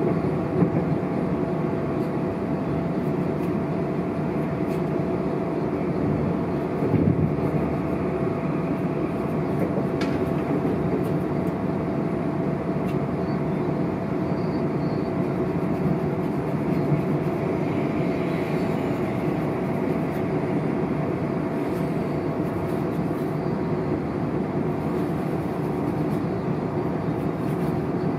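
Inside a moving electric passenger train: the steady rumble of wheels on the rails, with a steady whine over it. A brief louder knock comes about seven seconds in.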